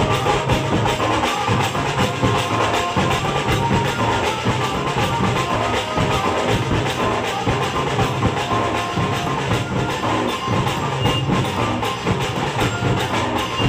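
Street band of dhol barrel drums beating a fast, steady rhythm, with a melody line playing over the drums: a Bhadu folk tune.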